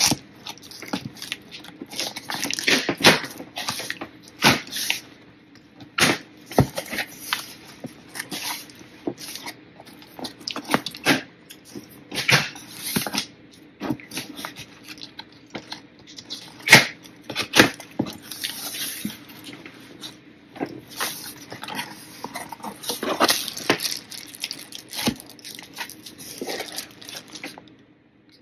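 Scissors cutting packing tape on a cardboard shipping box and the flaps being pulled open: irregular scrapes, snips and sharp cardboard cracks, each short and separate.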